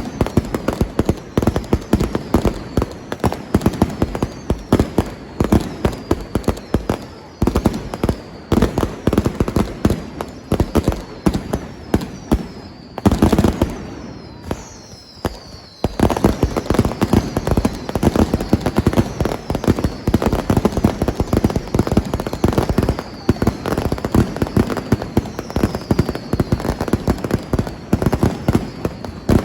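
Fire-parade pyrotechnics: a dense, nonstop crackle of firecrackers going off, with whistling fireworks whose pitch falls. About halfway through comes one louder blast and a couple of seconds' lull, then the crackling starts again abruptly.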